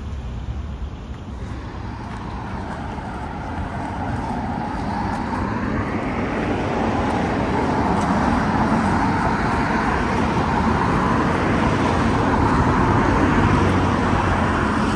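Road traffic going by on a town street: the noise of cars swells over the first six seconds or so and then holds steady.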